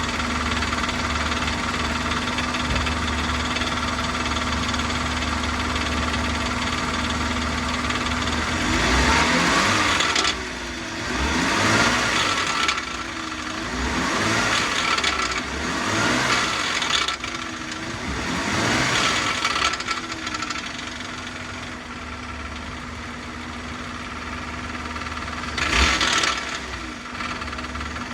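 BMW E39's M54 straight-six engine and exhaust idling steadily, then revved several times in a row through the middle and dropping back to idle each time, with one more short blip near the end. The exhaust note is what the owner takes for a sound issue.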